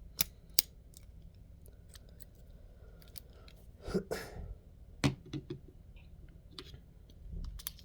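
Small metal clicks and scrapes of a lock pick being worked out of a just-opened lock: two sharp clicks near the start, a short rasp about four seconds in, another click about a second later, and faint scattered ticks between.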